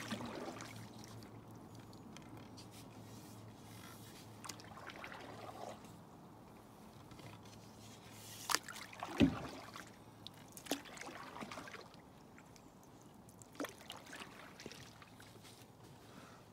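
Canoe being paddled on calm water: faint trickling and dripping from the paddle, with a few short knocks of paddle or gear against the Pelican Colorado canoe's hull, the loudest a dull thump about nine seconds in.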